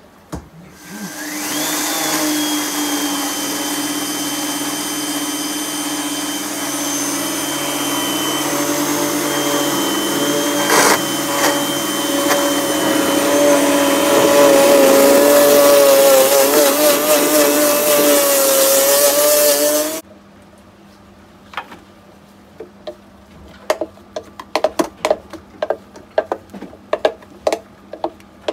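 Blendtec blender motor starting up and grinding raw pumpkin seeds into meal for pumpkin seed butter, its pitch wavering in the last few seconds, then stopping suddenly. After it stops, a wooden spoon scrapes and knocks inside the plastic blender jar, pushing the ground seeds down.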